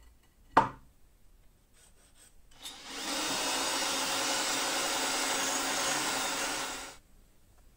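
A sharp knock about half a second in, then a cordless drill runs steadily for about four seconds, its bit grinding into the face of an abrasive grinding wheel to take material off the wheel's heavy spot and balance it; it stops abruptly.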